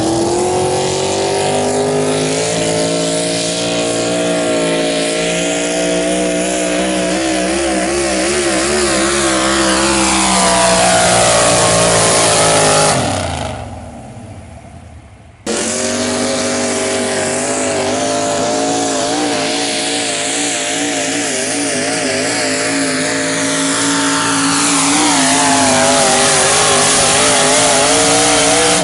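Modified pulling pickup trucks making full-throttle pulls one after another, each engine held at high revs, its pitch wavering. The first pull falls in pitch and fades about halfway through; then a second truck's engine comes in suddenly at full throttle.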